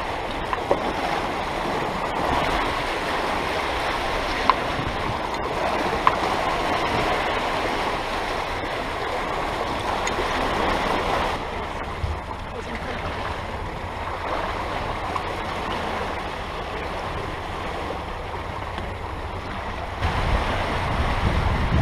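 Water rushing and splashing along a catamaran's hull and in its churning wake as the boat sails through choppy water, with a few light knocks. The rush dips a little about halfway through and swells again, heavier, near the end.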